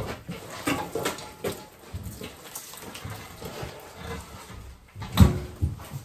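Scattered knocks and scrapes of metal as old steam boiler sections are handled and pulled apart, with one heavy thump about five seconds in.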